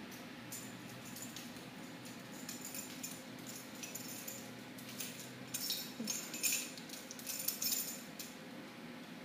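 A small dog's claws clicking and scrabbling on a hardwood floor as it chases about, with its collar tag jingling. The clicks come in scattered clusters, busiest in the second half, over a low steady hum.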